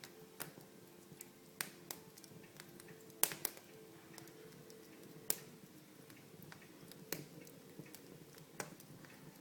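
Fire crackling in a fireplace: sharp, irregular pops and snaps about once a second, a few louder ones near the middle, over a faint steady hum.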